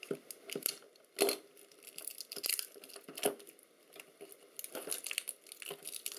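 Copper foil shielding crinkling and tearing as it is worked off the probe's internals, in irregular crackles with a louder burst about a second in.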